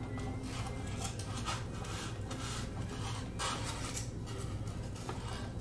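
Handling noise: irregular rubbing and scraping as a cordless drill with a guide is set into position on a foam part, over a steady low hum. The drill is not running.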